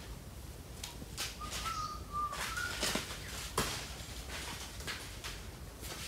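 A bird's short whistled calls, a few in quick succession about a second in, with scattered sharp crackles around them.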